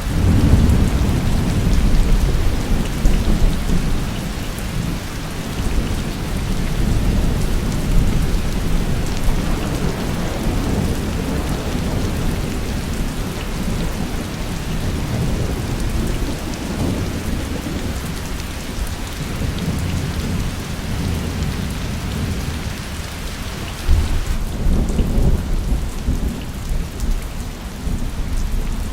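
Steady heavy rain with low rolling thunder. The rumble swells at the start, again past the halfway mark, and once more near the end.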